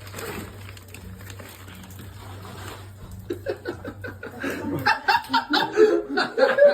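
People chuckling and laughing, starting quietly about three seconds in and growing louder. A low steady hum underneath cuts off about five seconds in.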